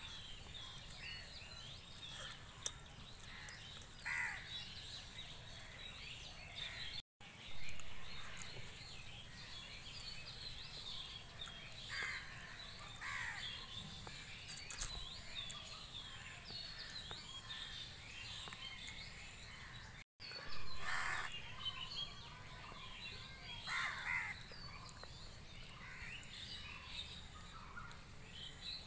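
Outdoor birdsong: many birds chirping and calling throughout, with a few louder calls standing out every several seconds.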